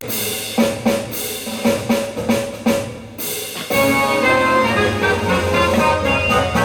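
Recorded national anthem opening with a series of drum strikes, then sustained instrumental notes from a little under four seconds in.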